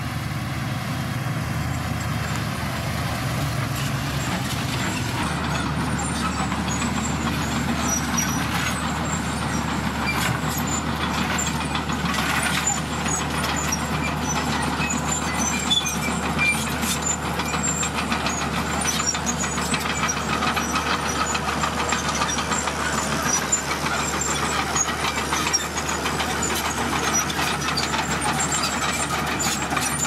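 Diesel dump truck engine running steadily while the truck raises its tipper bed to unload red gravel, with scattered small clatters of stones.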